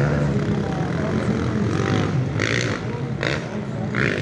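Motocross dirt bike engines running and revving on the track, a buzzing drone that rises and falls in pitch, with crowd chatter and three short bursts of noise in the second half.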